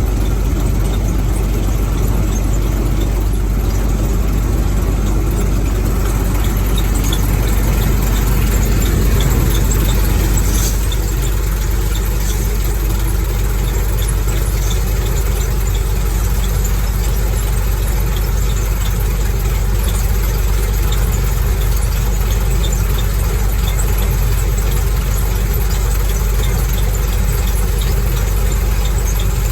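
International Harvester 1460 Axial-Flow combine running steadily at close range, a constant loud machine noise. About ten seconds in the middle of the sound thins a little while the deep part stays unchanged.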